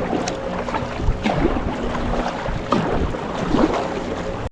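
Kayak paddling through choppy waves: paddle strokes splashing and water slapping around the boat, with wind noise on the microphone.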